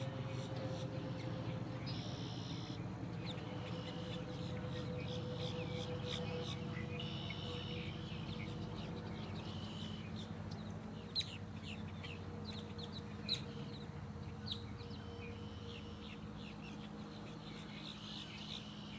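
Birds calling and chirping over a steady low hum, with repeated high calls every few seconds and a run of short sharp chirps in the middle.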